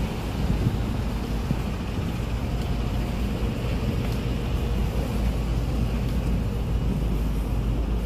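Steady city traffic rumble on a busy street, with a city bus close by.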